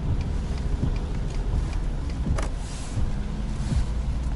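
Car cabin noise while driving on a rain-soaked road: a steady low rumble of engine and tyres, with windshield wipers sweeping the wet glass and a brief swish of spray about halfway through.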